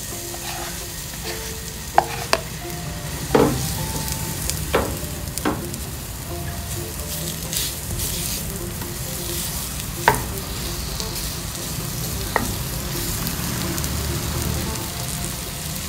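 A wooden spatula stirs and scrapes Thai red curry paste and palm sugar as they dry-roast together in a nonstick wok, over a steady low sizzle. The spatula knocks sharply against the pan several times.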